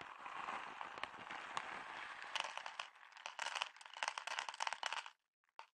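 Plastic bag of Friskies dry cat food crinkling as it is handled and tipped, then kibble pouring into a plastic bowl as a quick patter of small clicks that stops about five seconds in. It is the feeding sound the cat knows and comes to.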